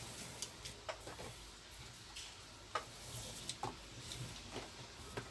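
Faint handling sounds of paracord being woven on a wooden bracelet jig: the cord rustles and slides, with irregular light clicks and taps.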